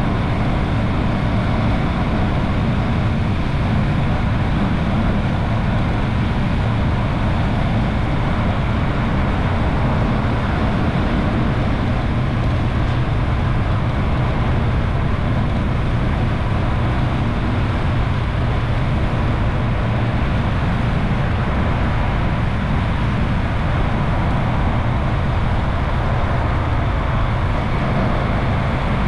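Motorcycle cruising at a steady speed: a constant rush of wind and road noise with a low engine drone underneath, unchanging throughout.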